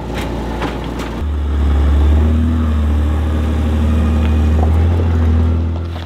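Utility vehicle's engine idling steadily, a loud low hum that comes in suddenly about a second in.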